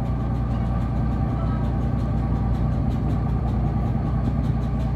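A boat engine idling steadily: a low, even drone with a light ticking several times a second over it.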